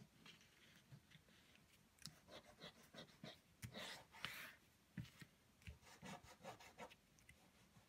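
Faint scratchy rubbing of a beeswax block crayon on drawing paper as a background is coloured in, in short irregular strokes that come thicker from about two seconds in.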